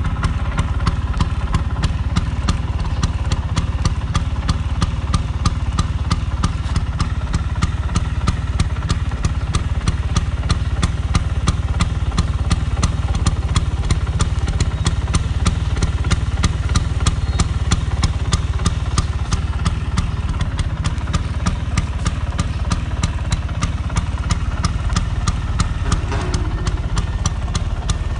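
Vespa 150 Standard's single-cylinder two-stroke engine idling steadily, with an even, rapid ticking clatter over a low running note.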